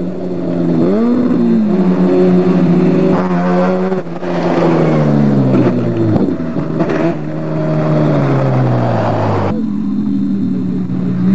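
Off-road race car engine revving up and down, then running hard past at speed, its engine note falling steadily for about five seconds as it pulls away. Near the end a sudden cut brings in a steady droning hum.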